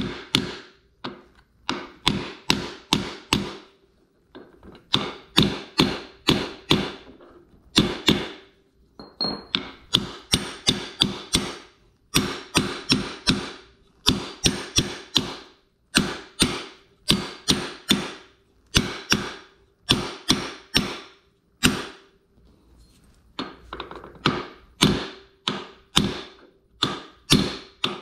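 Hammer blows on metal, in quick runs of three to five strikes with short pauses, each strike leaving a brief ringing note. A part is being driven down into the rear differential's electromagnetic coupler assembly.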